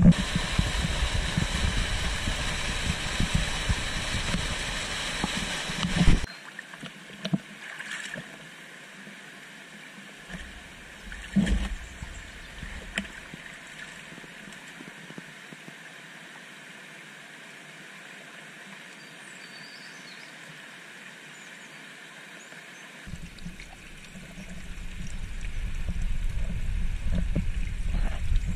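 River water running, loud at first and cut off abruptly about six seconds in, then a softer steady flow with a few sharp knocks, swelling louder again near the end.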